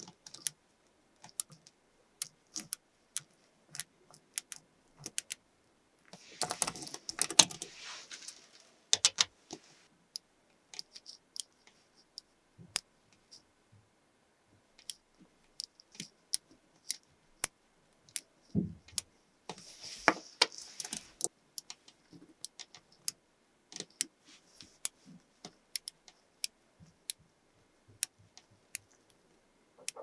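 Small metal magnetic balls clicking as they snap onto one another one at a time, with two longer spells of quick, dense rattling clicks.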